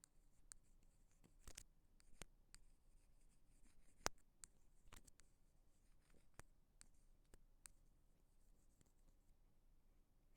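Ear pick scraping and tapping inside an earphone microphone: faint scattered scratches and clicks, with one sharper click about four seconds in.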